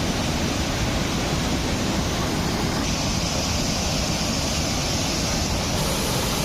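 Water of a small waterfall rushing steadily over rocks.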